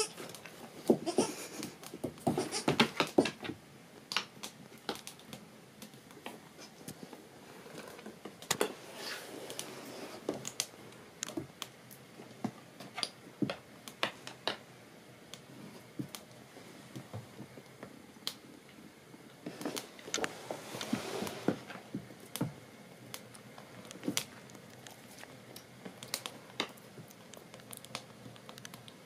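Scattered light clicks, taps and rustles of a dog and a newborn goat kid moving and nosing about on a wooden plank floor, busiest in the first few seconds and again about two-thirds through.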